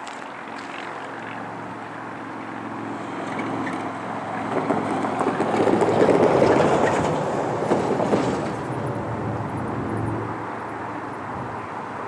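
Union Pacific diesel switcher locomotive running while it pulls a cut of freight cars through the yard, with the rolling cars' rumble. The sound swells to its loudest about halfway through, then eases off.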